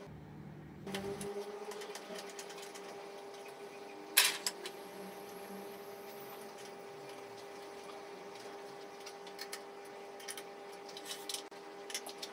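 A steady electrical hum, with metal clicks and knocks as a wooden vase blank is fitted into a lathe's four-jaw chuck and against the tailstock. One loud sharp clack comes about four seconds in, and smaller clicks come near the end.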